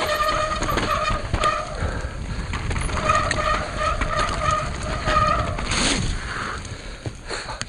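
Mountain bike descending fast over dirt and gravel: rumbling tyres and rattling frame and components, with the rear freehub buzzing in a steady high tone while coasting. The buzz runs in two stretches, for about the first second and a half and again for about two seconds in the middle, and the ride quietens near the end.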